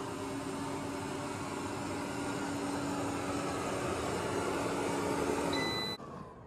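eufy robot vacuum running across carpet: a steady whooshing of its suction fan with a low hum. Near the end a short high beep sounds and the motor cuts off, winding down in a falling whine.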